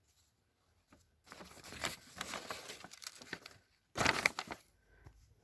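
Paper instruction manual being unfolded and handled, crinkling and rustling in irregular crackles, with a louder rustle about four seconds in.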